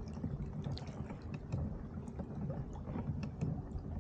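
Wind buffeting the microphone in an uneven low rumble, with small water splashes and drips lapping against a kayak hull.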